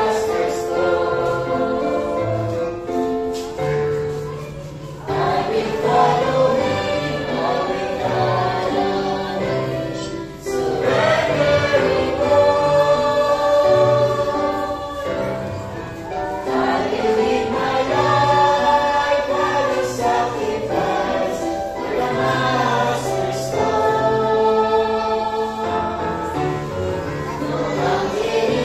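Small mixed choir of young women and one young man singing a sacred song, with brief breaths between phrases about five and ten seconds in.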